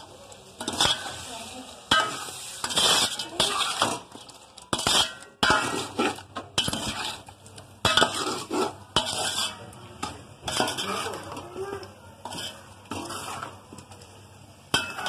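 A metal spatula scraping and clinking against a metal cooking pot in repeated strokes, about one a second, as chicken pieces with tomatoes and spices are stirred and fried in oil.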